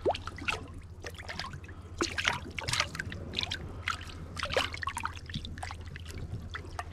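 Sea water lapping and trickling among shoreline rocks, with many small irregular splashes over a low steady hum.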